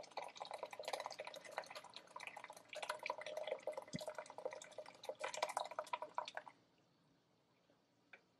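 Thick blended pineapple-skin and ginger juice pouring from a blender jug through a wire-mesh strainer into a bowl, splattering and dripping. It stops about six and a half seconds in.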